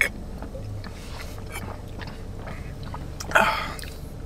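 People drinking from glass bottles, with small swallowing and mouth clicks and a sharp click at the start. A short breathy burst comes about three seconds in.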